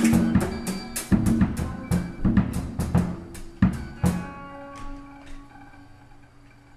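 Improvised band music on drum kit, bass and synth winding down. The drum strokes thin out and fade over about five seconds, leaving a faint low held tone.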